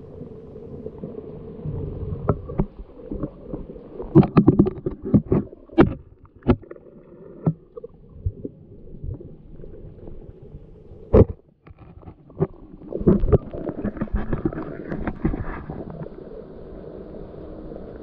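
Muffled underwater sound picked up by a handheld GoPro in its waterproof housing: a low rumble of moving water with clusters of sharp knocks and clicks from about four to seven seconds in, one strong knock near eleven seconds, and another cluster around thirteen to sixteen seconds.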